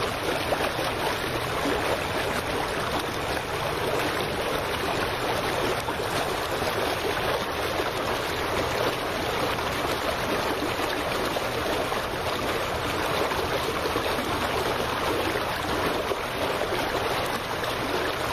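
Water lapping and splashing against a dock just below the microphone: a steady, even wash.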